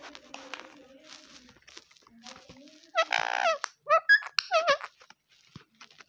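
Indian ringneck parakeet calling: a loud, wavering, harsh call about three seconds in, then a quick run of short high-pitched calls.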